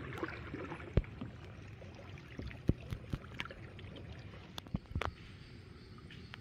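Kayak paddling on a calm river: soft water noise from the paddle, with a few scattered sharp knocks and drips, the loudest about a second in and a little under three seconds in.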